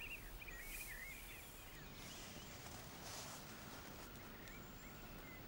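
Faint outdoor ambience with small birds chirping in quick, wavering calls, most of them in the first second and a half and a few more near the end.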